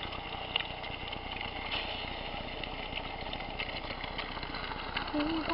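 Food sizzling and crackling in hot grease in a frying pan, a steady hiss dotted with small pops.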